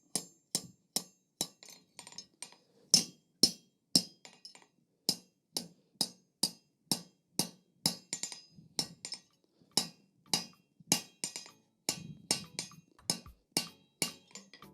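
Blacksmith's hammer striking hot steel on an anvil in a steady rhythm of about two to three blows a second, each with a short metallic ring, closing up a bend in the bar.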